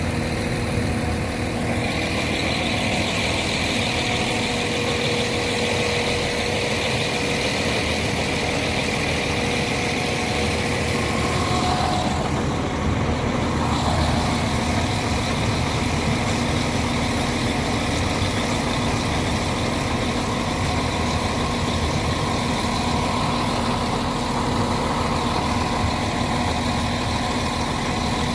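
Irish Rail 22000 Class diesel multiple unit passing close by at walking pace: a steady low drone from its underfloor diesel engines, with high whining tones from about two seconds in.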